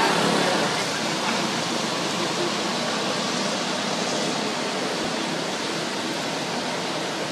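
Steady hiss of rain falling, a little louder in the first second.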